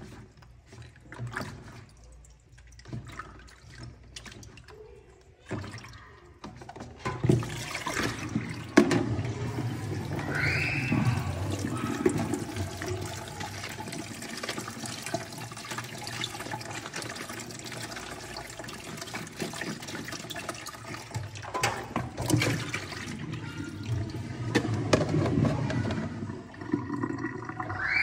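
Kitchen tap running into a sink, water splashing on grapes being rinsed in a plastic basket. It is quieter with scattered clicks and knocks at first, then runs steadily and louder from about seven seconds in.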